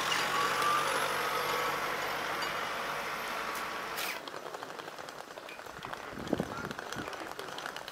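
Road traffic: a vehicle passes as a steady rush of tyre and engine noise with a faint, slowly rising whine. It cuts off about four seconds in, leaving quieter outdoor sound with faint clicks and scuffs.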